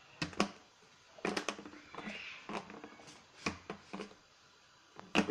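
Clip-lock lid of a plastic food container being handled and unlatched: a string of sharp plastic clicks and snaps at irregular intervals, with a double snap near the end.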